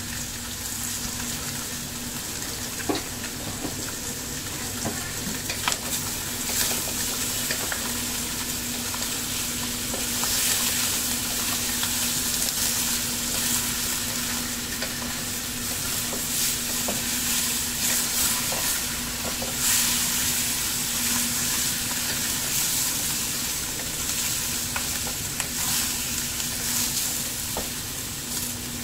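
Carp tail pieces sizzling in hot oil in a wok as they are browned, stirred and turned with a wooden spatula that knocks against the pan now and then. The sizzle grows louder about ten seconds in, over a steady low hum.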